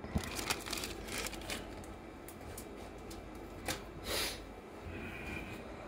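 Light clicks and rustling of a small circuit board and parts being handled on a table, with a short soft hiss about four seconds in.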